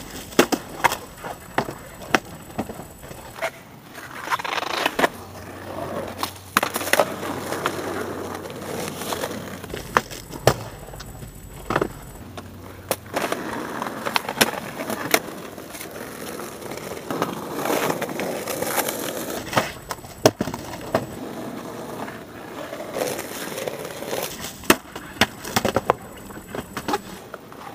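Skateboards rolling over concrete and asphalt, with many sharp wooden clacks of boards popping and slapping down as skaters try tricks on a low concrete ledge.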